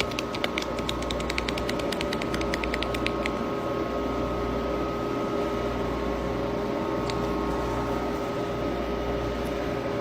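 Steady machine hum with a few fixed tones and a low rumble that swells and fades about once a second; a rapid run of clicks, about six a second, over the first three seconds.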